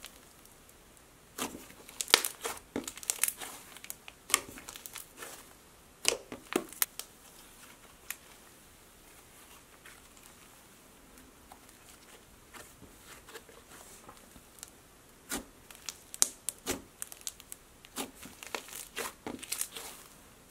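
Thick pink cloud cream slime being pressed, folded and stretched by hand, giving irregular crackling and popping clicks as trapped air bursts. The clicks come in clusters, with a quieter stretch in the middle.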